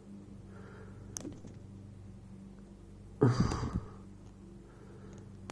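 Handling noise of a lock and lock picks being repositioned: a sharp click about a second in, then a short, louder rustle with small clicks about three seconds in, over a steady low hum and quiet breathing.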